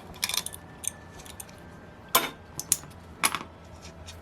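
Small metal tools and parts of a model glow engine clinking and tapping on a workbench during disassembly, with two sharper clinks about two and three seconds in.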